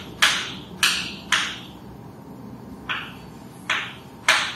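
Chalk writing on a chalkboard: about six short strokes of the chalk against the board, irregularly spaced, with a pause of about a second and a half near the middle.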